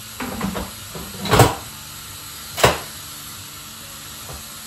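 Two sharp plastic clicks a little over a second apart, after a few lighter knocks, as a Crockpot Express pressure cooker's lid is handled and set to its closed, locked position.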